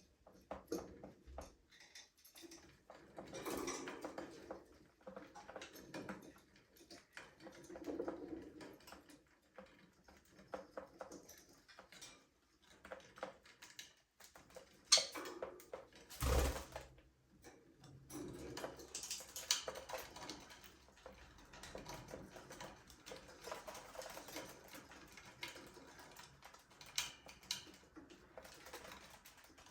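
Budgerigars softly chattering, with many small clicks and scratches from beaks and feet, and one louder knock a little past halfway.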